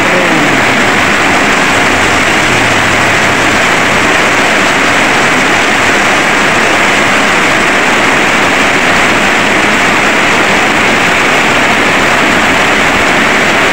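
Heavy tropical downpour: a dense, steady hiss of rain pouring onto the street and the corrugated metal roofs.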